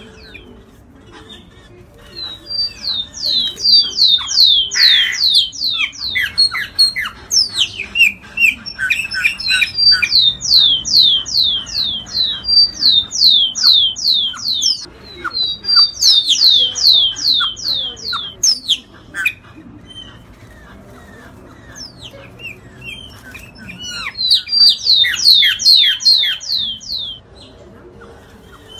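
A black icterid blackbird, the bird known as iraúna or graúna, singing loud bouts of fast, falling whistles at about five notes a second. A lower, more varied run of notes comes about a third of the way in, and there is a pause of several seconds between the last two bouts.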